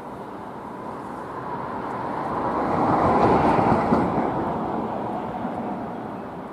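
A vehicle passes close by: its noise swells to a peak about halfway through and then fades away again.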